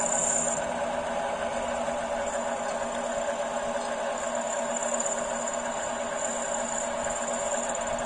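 MJ9512B mini lathe running, its chuck spinning, with a steady mechanical whir from the motor and gearing. A thin, high whine fades in and out over the top, loudest near the start and again through the second half.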